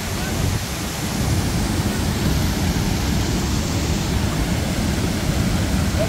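A large waterfall rushing: a steady, even roar of falling water.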